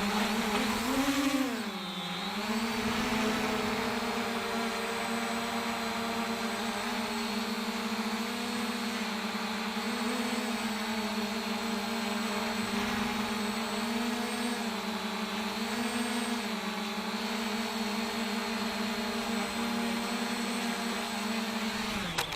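JJRC X1G quadcopter's brushless motors and propellers whining steadily in flight. The pitch dips and swells with throttle changes about a second in and several more times. The whine cuts off abruptly near the end as the motors are shut down.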